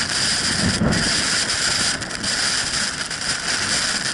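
Blizzard wind blowing hard, a loud, rough hiss of gale and blowing snow buffeting the microphone, which cuts in and stops abruptly.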